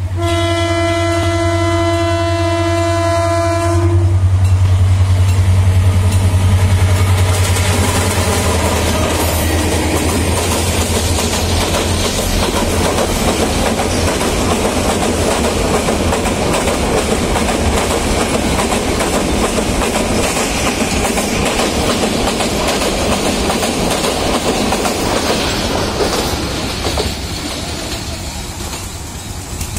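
Bangladesh Railway passenger train passing at speed: a single long blast of the diesel locomotive's horn for about the first four seconds, then the locomotive's engine running loudly as it goes by, followed by a long steady rumble and clatter of coach wheels on the rails that fades near the end.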